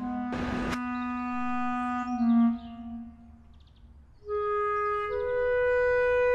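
Background music of slow, long-held notes on a woodwind. One low note fades out about three seconds in, and higher notes come in after a short pause. A short burst of noise sounds about half a second in.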